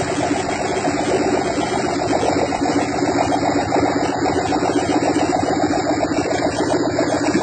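Modified three-cylinder engine running steadily, with an even, fast pulse.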